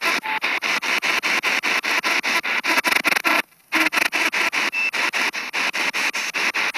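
Spirit box radio sweeping through stations, played through a small Altec Lansing portable speaker: choppy static cut about eight times a second, with one brief dropout about halfway through.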